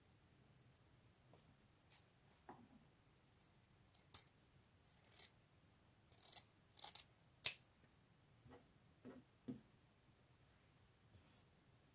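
Small scissors snipping through sewn cotton patchwork, a handful of quiet separate cuts along the diagonal between the seams, the sharpest one a little past the middle.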